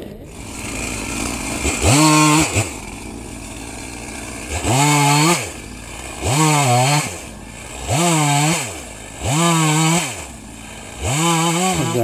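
Husqvarna two-stroke chainsaw idling between bursts and being throttled up to full revs about six times, a second or so each, while bucking a fallen log. Each burst rises in pitch and then drops back to idle.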